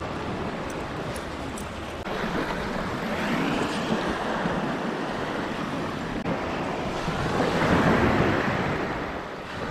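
Surf washing onto a sandy beach, mixed with wind on the microphone, as a steady rushing noise that swells about three seconds in and again, louder, near the end.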